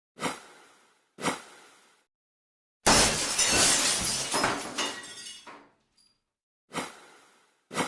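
A series of glass-breaking sound effects separated by silence. Two short glass breaks come first, then a long shatter with pieces tinkling down for about two and a half seconds, then two more short breaks near the end.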